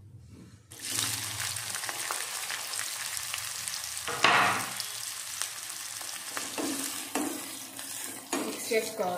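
Sliced onions and green chillies hitting hot oil in an aluminium kadai and sizzling, the hiss starting suddenly about a second in. There is a brief louder burst about four seconds in, and near the end a spatula stirs them against the pan.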